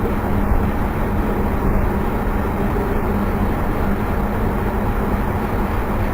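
Steady background noise with a low, constant hum, unchanged throughout.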